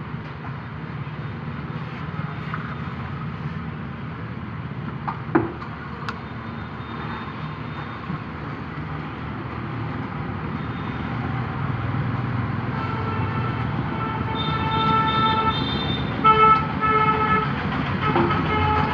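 Steady road traffic rumble, growing louder, with a vehicle horn sounding in several blasts near the end and an occasional knock.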